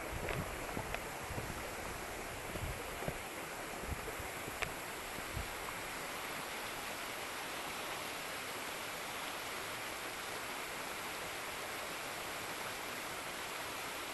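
Waterfall's steady rushing hiss of falling water. A few low thumps come in the first five seconds.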